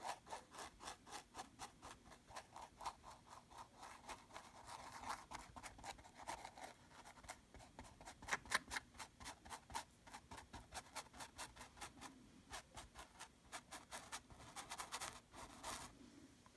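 Paintbrush scrubbing back and forth on canvas, blending wet paint in quick short strokes about four a second, faint and scratchy.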